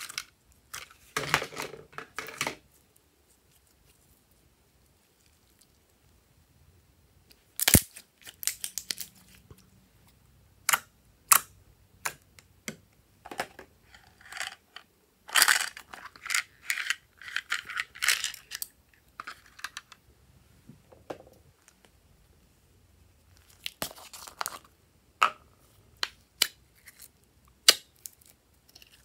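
Hands handling glossy slime and plastic toy cases: a series of sharp plastic clicks and taps, and short wet crackling squelches as the slime is pressed and pulled, separated by quiet gaps.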